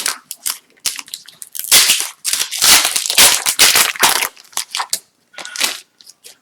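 Foil wrapper of an Upper Deck Series 2 hockey card pack crinkling and tearing open, in dense crackling bursts loudest in the middle, followed by a few lighter clicks and rustles near the end.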